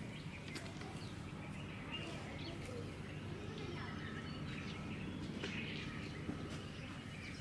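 Small birds chirping faintly, short scattered calls over a low steady background rumble.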